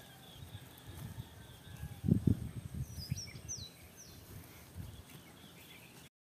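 Rural outdoor ambience: a few birds chirping in short falling calls, over a low rumble on the microphone, with two dull thumps about two seconds in.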